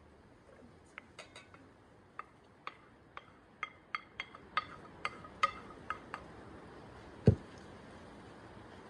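Wooden spatula tapping and scraping diced carrots and potatoes off a plastic plate into a bowl: a quick run of light, faintly ringing clicks, then a single duller thump about seven seconds in.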